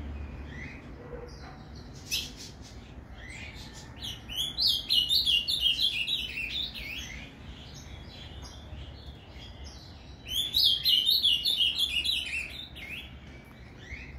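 Male azulão (ultramarine grosbeak) singing the 'Paraná' song type: two phrases of fast, warbled notes, about two and a half seconds each, the first about four seconds in and the second about ten and a half seconds in, with a single sharp call note about two seconds in.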